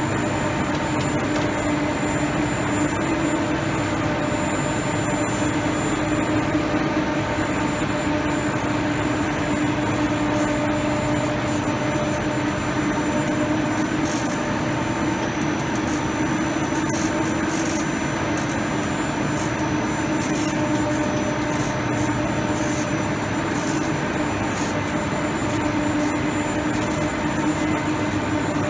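Blown-film extrusion line for polyethylene shrink film running: a steady machine hum with a constant low tone, and faint high ticking in the second half.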